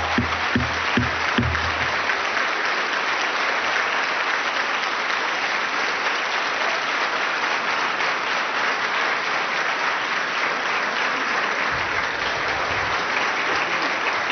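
Sustained applause from a large crowd in a legislative chamber, greeting the announcement that the bill has passed its vote. A low rhythmic beat, about two to three a second, runs under it and dies away in the first two seconds.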